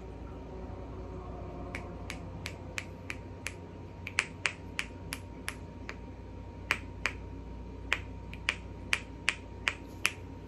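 Rainbow snapper fidget toy clicking sharply as it is squeezed in the hand, in runs of about three snaps a second with short pauses between runs.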